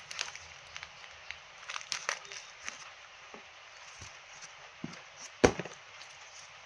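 Scattered light clicks and knocks, with one sharp, loud knock about five and a half seconds in.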